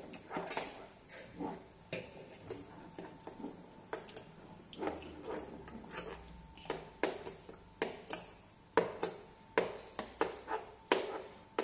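Metal forks and spoons clinking, tapping and scraping on plastic plates as small children eat. The clicks come irregularly, a few every second, and grow louder and sharper in the second half.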